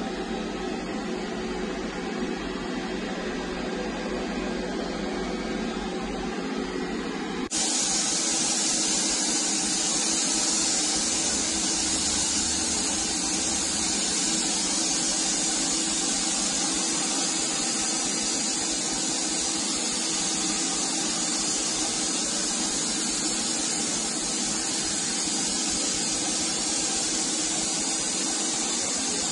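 A compact paint spray gun hissing steadily as it sprays colour-shift chameleon paint onto a motorcycle body panel. A quieter steady hiss comes first; about seven seconds in the gun's louder, sharper air hiss starts suddenly and runs on evenly.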